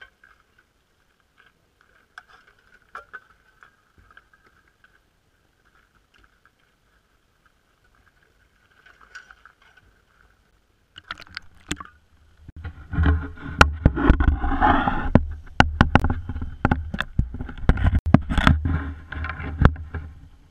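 Faint scrapes and taps of shovels clearing slush on lake ice. About twelve seconds in this gives way to loud knocking, rumbling and water sloshing as the camera housing is handled and lowered into the icy water.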